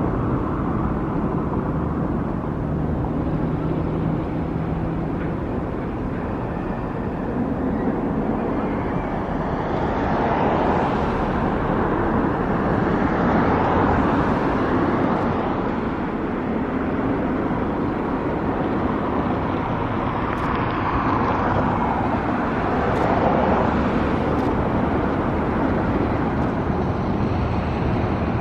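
Steady outdoor vehicle and road traffic noise, with a low engine hum and slow swells as vehicles pass.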